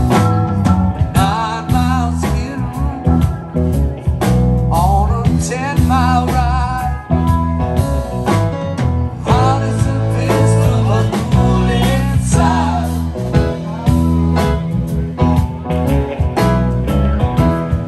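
Live blues-rock band playing: a lead line of bending, wavering notes over bass guitar and drums.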